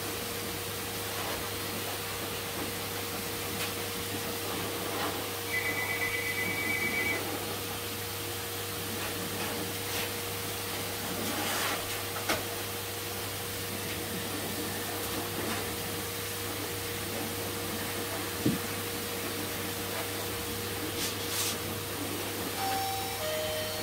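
Steady electrical hum with an even whooshing noise from a running machine. There are a few faint clicks and a short, high double beep about six seconds in.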